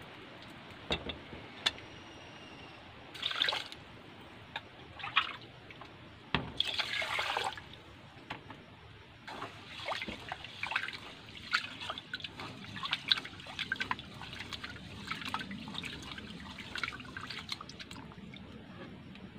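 Rice being washed by hand in a metal pot: water sloshing and splashing as a hand swishes the grains around. A few louder splashes come in the first half, then a run of many small splashes through the second half.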